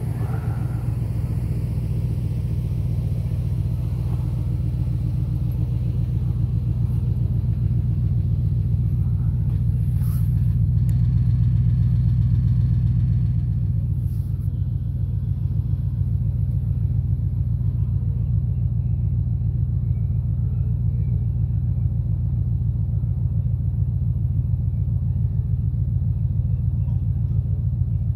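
A vehicle engine idling steadily, a low, even rumble.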